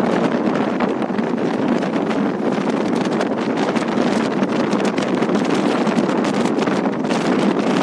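Wind rushing over the microphone from a moving vehicle: a steady rush with fine crackling buffets, mixed with the vehicle's running noise.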